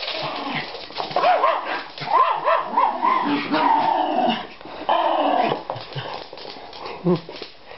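Schipperkes barking and yipping as they play-fight: a quick run of short high yips, then two longer drawn-out calls in the middle, and a few short barks near the end.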